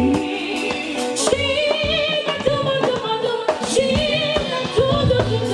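Live gospel music with a band and drums, with sung lines that waver in pitch, between the lead singer's phrases.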